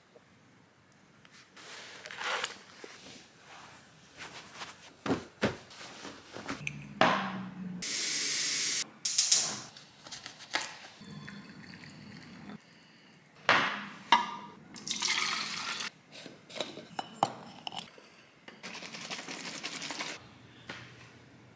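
A sequence of short kitchen sounds: water running and pouring in several stretches of hiss, a knife cutting through a lemon on a wooden board, and scattered knocks of things being handled and set down.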